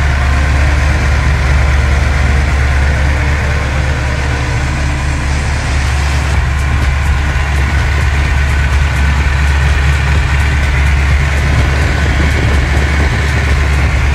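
Ford 302 (5.0 L) small-block V8 with a Trick Flow cam, long-tube headers and Mac mufflers, on Holley Terminator X fuel injection, idling steadily, heard up close in the engine bay. A faint fast ticking comes in about six seconds in.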